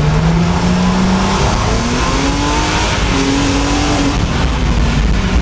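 Car engine heard from inside the cabin, revving under acceleration with steady road and tyre noise. Its pitch climbs, falls about a second and a half in, then climbs again and falls near four seconds in.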